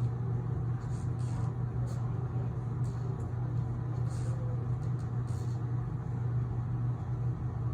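A steady low hum, with a few faint brief rustles or clicks.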